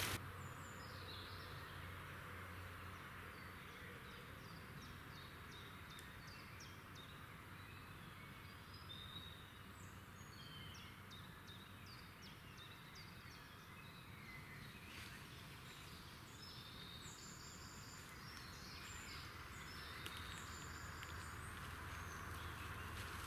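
Faint outdoor ambience: small birds chirping now and then over a steady background hiss and low hum.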